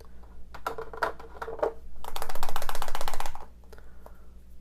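Small hard-plastic clicks as a toy capsule ball is handled and twisted open: a few separate clicks, then a rapid run of fast plastic ticking for about a second.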